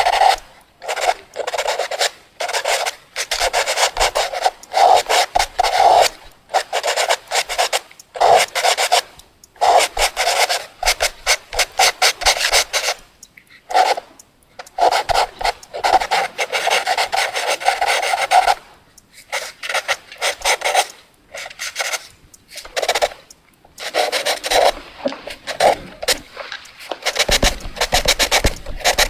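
Pencil scribbling fast on paper: rapid scratching strokes in bursts of one to three seconds, with short pauses between them. A low rumble comes in near the end.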